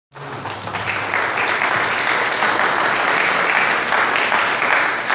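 An audience applauding, loud and steady.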